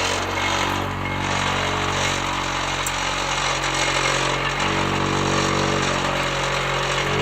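Small 220-volt cinder-block (sand-block) making machine running steadily: a low electric hum with a noisy rattle over it.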